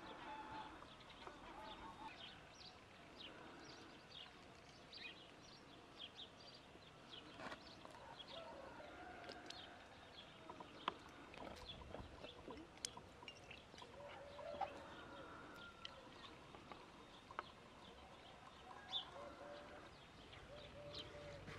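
Faint outdoor ambience of birds: many short chirps and calls scattered through, with a few sharp clicks.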